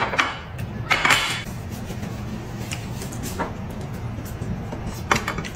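Soft background music with mealtime noises: a few light clicks of chopsticks against porcelain bowls and a short hiss about a second in.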